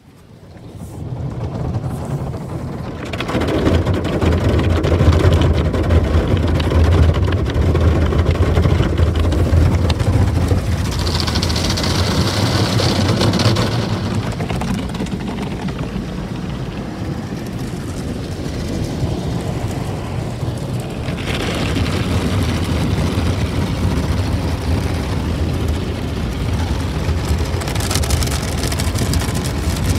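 Ryko in-bay automatic car wash running over the car, heard from inside the cabin: water spraying on the body and glass over a steady low machine hum. A brighter hiss of spray comes in for a few seconds near the middle.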